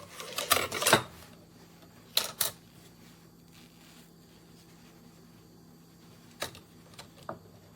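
Kitchen knives being handled, clicking and clattering: a flurry of clicks in the first second, two more about two seconds in, and a few lighter clicks near the end.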